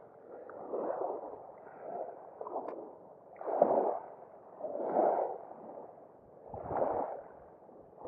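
Small waves lapping and washing over a pebble shoreline, coming in soft swells every one to two seconds.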